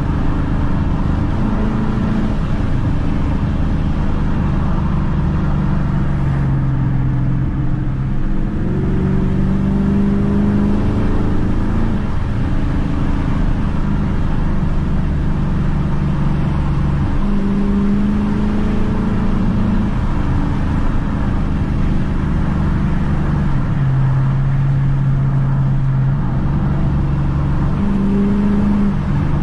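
2012 Dodge Challenger R/T's 5.7-litre Hemi V8 engine and exhaust, heard from inside the cabin while driving. The engine note holds steady for stretches, then rises and drops again several times as the car speeds up and eases off.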